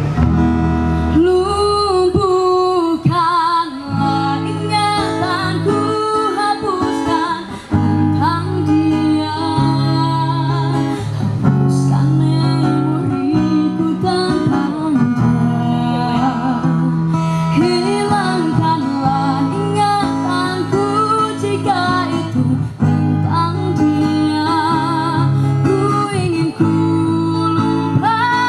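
Live acoustic performance: a singer with strummed acoustic guitar and a steady bass line, amplified through a PA system.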